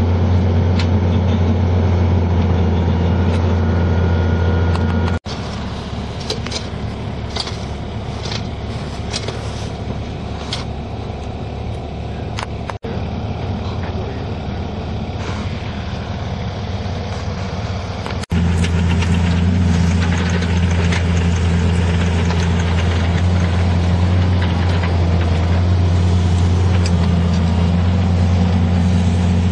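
Mini excavator engine running steadily, a loud low hum. For a stretch in the middle the engine is fainter and scattered clicks and knocks come through instead, then the loud engine hum returns.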